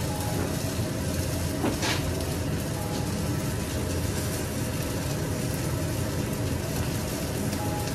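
Kitchen range hood fan running with a steady whoosh and low hum. There is a single click about two seconds in.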